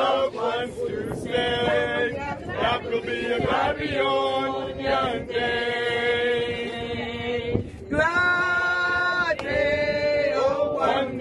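A group of voices singing a gospel hymn together, with long held notes.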